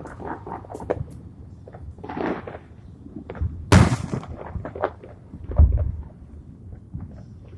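Fireworks going off: scattered crackling pops, a loud sharp bang about halfway through, and a deep boom shortly after.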